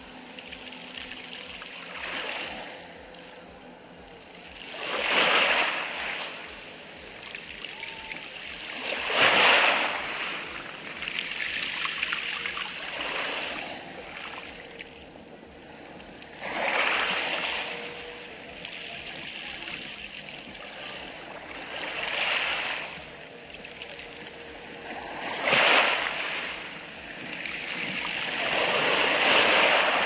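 Small sea waves washing in over a pebble beach. The hiss of the water swells and fades, with a louder surge every three to five seconds.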